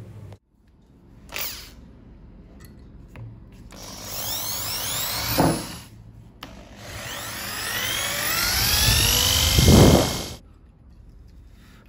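Electric drill with a small bit boring into the stakes that hold a car antenna's circuit board to its base. It runs in two bursts of a few seconds, each getting louder, and the second ends in a heavier rumble as the bit bites through.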